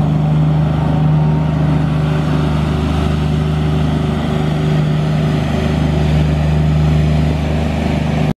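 Lombardini diesel engine of a Palfinger F3-203PX truck-mounted forklift running at steady revs as the forklift drives along, with a low, even hum.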